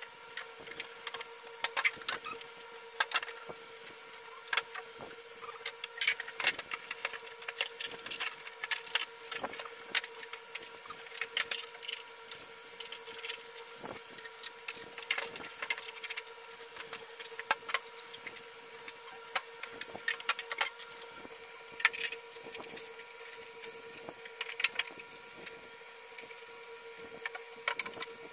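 Irregular clicks and knocks of hard plastic toy parts being handled and fitted together, over a steady hum.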